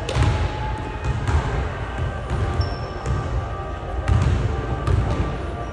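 A basketball bouncing on a court, with sharp knocks about once a second.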